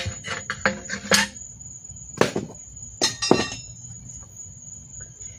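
A string of sharp knocks and clinks, the loudest about two and three seconds in, over a steady high chirping of crickets.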